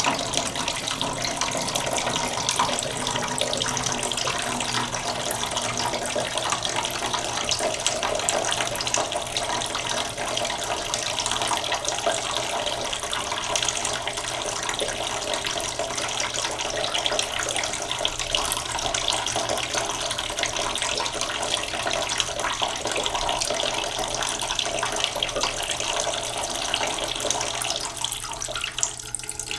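A tap running steadily into a cooking pot in a sink, slowly filling it with a continuous splashing stream.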